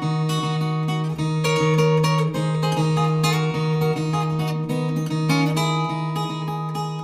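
Viola caipira, the ten-string Brazilian folk guitar, played solo fingerstyle: a plucked melody over a steadily repeated bass note.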